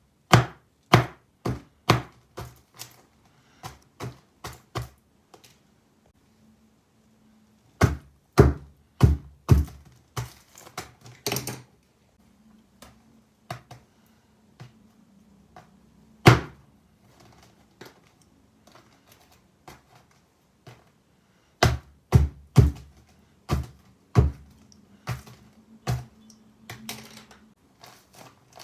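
A run of sharp knocks and taps in a small room. They come in quick clusters of several strokes, with pauses of a few seconds between clusters, over a faint low hum.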